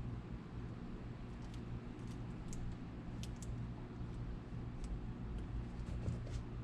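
Scattered light clicks and ticks of hand work on a shoe over a steady low hum.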